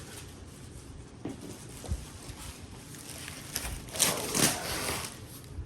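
Packaging being handled during an unboxing: a couple of light knocks, then a loud rustling and crinkling of packing material about four seconds in.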